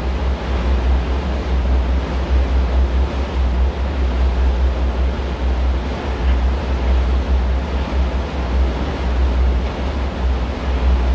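Wind buffeting the microphone in an uneven low rumble, over a steady rushing noise of water and a boat under way.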